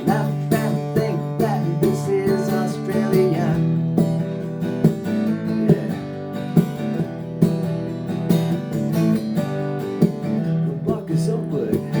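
Acoustic guitar strummed in a steady rhythm, playing the chords of an instrumental break between verses of a song.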